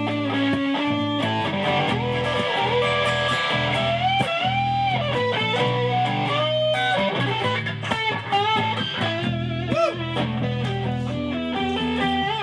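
Overdriven electric guitar playing an instrumental lead break, with notes bent up and down, over steady low bass notes.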